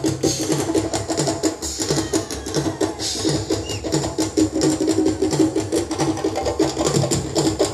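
Live African drum ensemble playing a fast, dense rhythm: hand-played djembe strokes over stick-played dundun bass drums.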